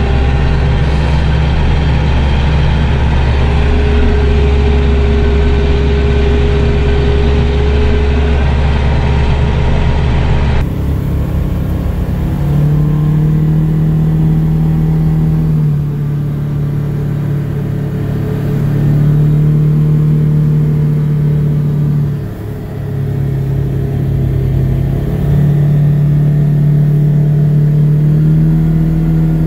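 Kioti RX7320 diesel tractor engine running steadily, heard from inside the cab. After a sudden cut about ten seconds in, a different vehicle's engine is heard driving along, its pitch stepping up and down several times as it speeds up and eases off.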